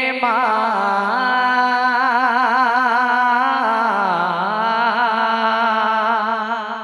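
A man singing a naat unaccompanied into a microphone, drawing out one long note with a wavering vibrato. The pitch drops about four seconds in, and the voice fades out near the end.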